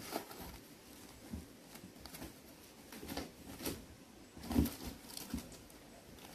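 Kittens moving about on cardboard boxes and eating dry food beside metal bowls: scattered light knocks, scrapes and clicks at an uneven pace, the loudest a thump a little past the middle.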